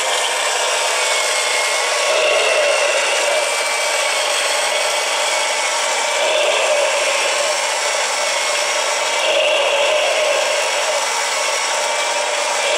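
Motorized 1:4-scale Haynes plastic flat-six boxer engine model running: its electric motor turns the crankshaft, pistons, valves and distributor with a steady mechanical whirring that swells slightly every few seconds.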